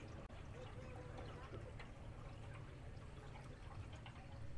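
Water gurgling and splashing along the hull of a small canal boat under way, over a steady low rumble.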